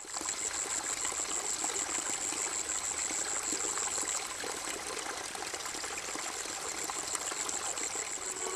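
Small waterfall: water spilling steadily over a stone ledge and splashing onto the rocks below, with a high-pitched, evenly pulsing sound running alongside.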